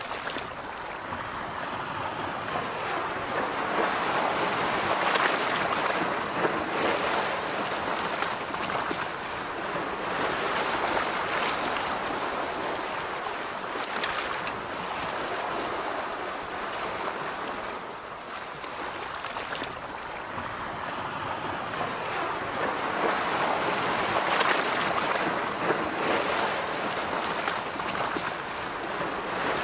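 Ocean surf washing on a beach, the noise of the waves rising and falling in slow swells several seconds apart, with a few brief sharper moments.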